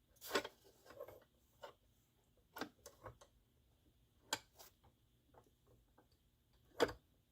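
Irregular light clicks and knocks of tilt/telescopic steering column parts being handled and fitted together, as the pivot hub is worked into mesh with the key release mechanism. The loudest knock comes near the end.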